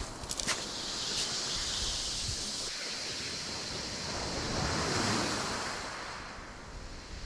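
Sea surf washing on the shore with wind on the microphone, the wash swelling about five seconds in; a few brief clicks sound in the first second or so.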